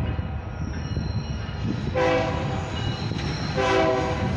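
The horn of an approaching BNSF diesel locomotive gives a long blast about two seconds in and a short one near the end, part of the long-long-short-long grade-crossing signal. A steady low rumble of the train runs underneath.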